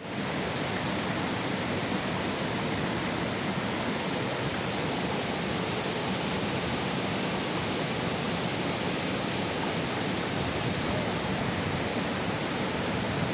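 Steady, even rush of a waterfall's water pouring into a rocky stream.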